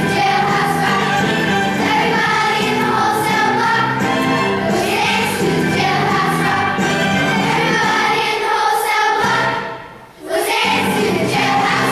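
Children's choir singing a 1950s rock and roll song over instrumental accompaniment. The music drops out for a moment about ten seconds in, then comes back.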